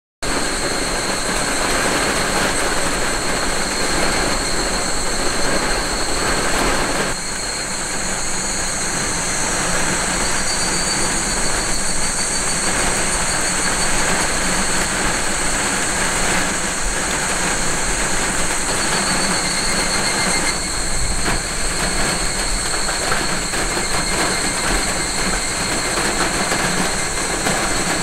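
Rain falling on a car's roof and windows, heard from inside the cabin: a steady, dense hiss with a few steady high-pitched tones above it.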